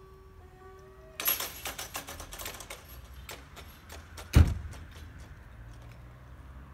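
Electronic crossing bells of a level crossing ringing, stopping about a second in as the barrier booms come down, followed by a run of rapid metallic clattering from the booms and their hanging grilles settling. One loud knock about four and a half seconds in, then a few fainter clicks.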